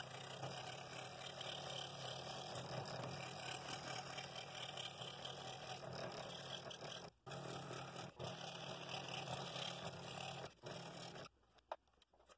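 Scroll saw running with a number 5 blade, cutting through a stacked pair of wooden gear blanks. It is a steady cutting drone that breaks off briefly a few times and drops away near the end.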